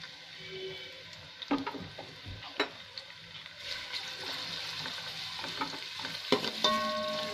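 Sliced onions sizzling in hot oil in an aluminium pot, stirred with a metal spoon that clinks and scrapes against the pot. The sizzle grows louder from about halfway as the onions start to fry, on their way to being browned.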